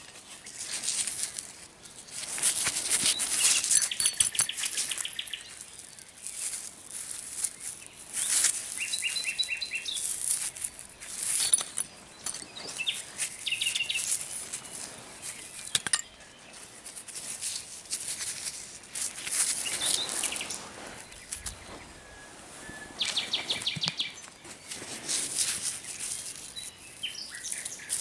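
A common nightingale singing short phrases of fast repeated notes, several times. Over it, soil crumbling and rustling in gloved hands, in repeated hissy bursts that are the loudest thing heard.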